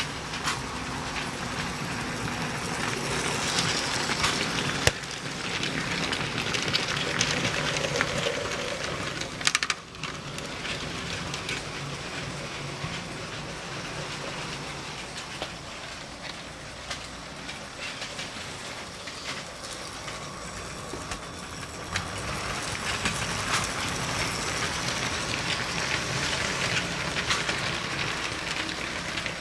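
Motorised LEGO train running along plastic track, a steady rattle with fine rapid clicking from its wheels and motor that grows louder as it comes close. Two sharp knocks cut in, about five seconds in and just before ten seconds.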